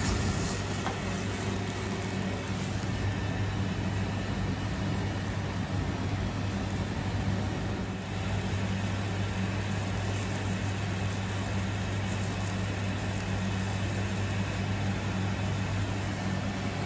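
Steady kitchen noise with a constant low hum: a commercial gas burner running at full flame and the kitchen ventilation, with sauce boiling hard in an aluminium pan.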